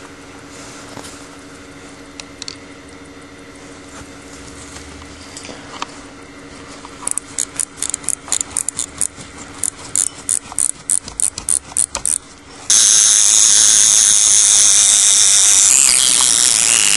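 Vulcain Alarm wristwatch with an Adolf Schild AS 1930 alarm movement: a crown is turned with a run of small clicks, about four a second. About two-thirds of the way in, the alarm goes off with a loud, steady buzz that carries on.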